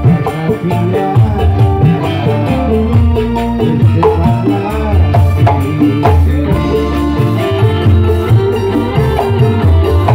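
Live dangdut band playing an instrumental passage: a steady rhythm of hand drums and shaker-like percussion under held melody notes.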